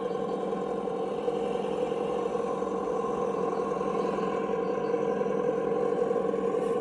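Simulated engine sound from a Reely sound module in a Traxxas TRX-4 Bronco RC crawler, played through its small onboard speaker. It runs steadily and grows slightly louder toward the end.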